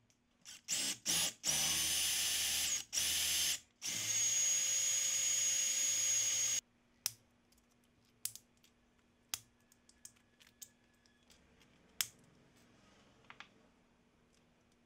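Cordless drill with a twist bit boring through a dark cast disc: a few short trigger pulls, then the drill runs steadily for about two and a half seconds and cuts off. Then a scattering of sharp snips and clicks as cutting pliers trim the part, one louder near the end.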